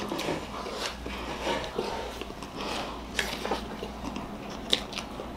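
Quiet eating sounds of two people eating cream-iced cake face-down from their plates: soft wet smacking with scattered small clicks.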